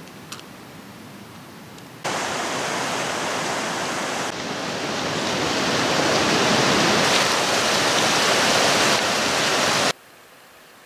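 Loud, steady rushing of a fast mountain creek close by. It cuts in abruptly about two seconds in, grows louder partway through, and stops abruptly near the end.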